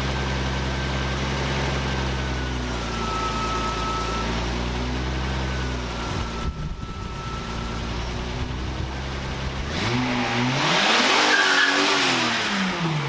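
1976 Datsun 280Z's straight-six engine idling steadily, then about ten seconds in revved hard as the car pulls away, its pitch climbing and then dropping at a gear change before climbing again, with a loud hiss over the top at full revs.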